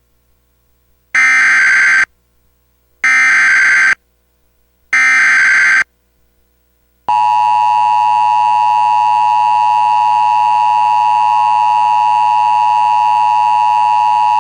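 Emergency Alert System alert opening: three one-second bursts of SAME digital header data tones, about a second apart. About seven seconds in, the steady two-tone EAS attention signal begins and holds.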